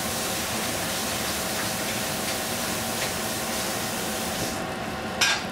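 Bok choy sizzling in a stainless steel pot on a gas stove, a steady hiss. A single sharp knock about five seconds in.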